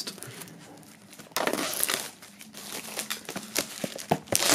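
Plastic shrink-wrap film being peeled off a cardboard CD box and crinkled by hand. It comes in irregular crackling bursts starting about a second and a half in, with a few light knocks near the end.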